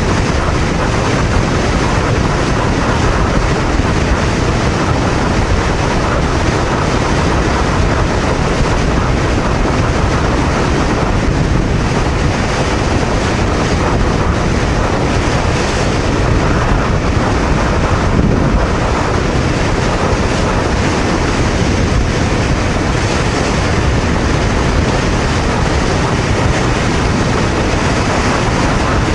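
Steady wind roar on the microphone of a Honda VTR250 motorcycle cruising at highway speed, around 105–115 km/h, mixed with engine and road noise.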